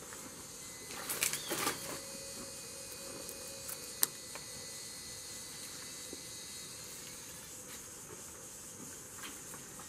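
A thin stick being handled and poked into the ash of a masonry wood stove: a short burst of rustling and scraping about a second in, then one sharp tap about four seconds in, over a faint steady hiss.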